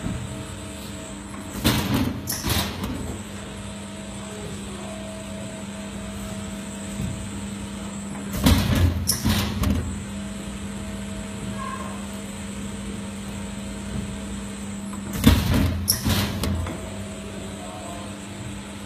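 Cookie depositing machine running with a steady hum, broken three times by a short burst of mechanical clanks, about seven seconds apart, as it cycles.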